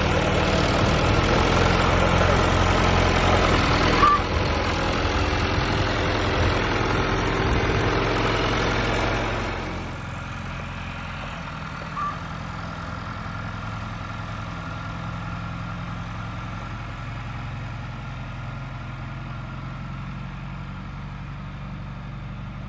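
John Deere farm tractor's engine running steadily, louder for the first ten seconds and then farther off and quieter. A short click sounds about four seconds in.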